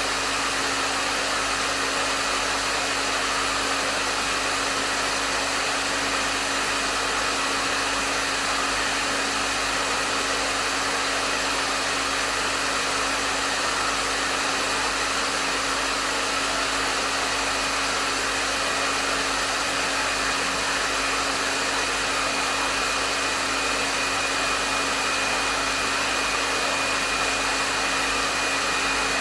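Hair dryer running continuously: a steady rush of air with a faint motor hum and whine, unchanging throughout.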